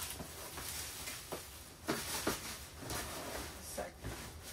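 Rustling and a few light knocks as a plastic-wrapped box is handled and set down on top of suitcases.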